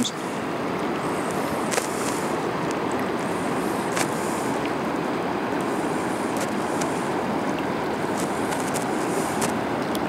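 Steady rush of a river's current, with a couple of faint ticks about two and four seconds in.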